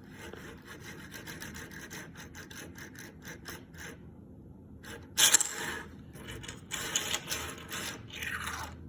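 Plastic star-shaped fidget toy being twisted in the hands: a rapid run of small clicks, then, after a short pause, louder scraping rasps, one falling in pitch near the end.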